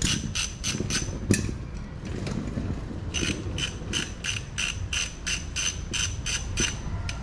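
Ratchet wrench clicking at about five clicks a second in two runs, a short one at the start and a longer one from about three seconds in, with a single sharp metallic knock about a second in.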